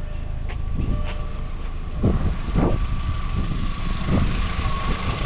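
2004 VW Golf's 2.0-litre four-cylinder engine idling with the A/C compressor switched off, running on a newly fitted accessory belt with no belt squeal. A thin steady whine grows louder near the end, and a few dull thumps come in the middle.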